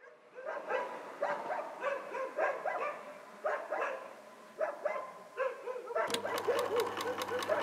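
Dogs barking repeatedly in short barks with uneven pauses. About six seconds in, a fast, even clicking of knitting needles starts, with a low steady hum under it.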